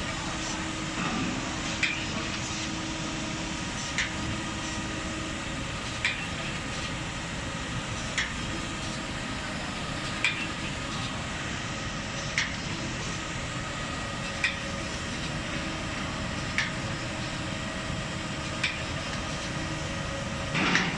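SGA4080AHD surface grinder running with a steady hum, with a short knock about every two seconds as its reciprocating table reverses at each end of its stroke.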